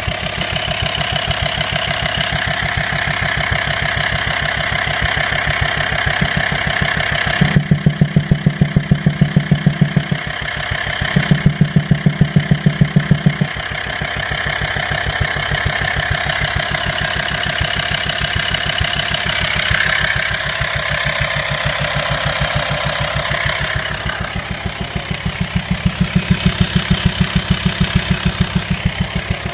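Volkswagen T5 2.5 TDI five-cylinder diesel idling with a deep, rhythmic knock from the air-filter side of the engine. The knock grows much louder for a few seconds at a time, three times. It comes from a worn camshaft and tappets.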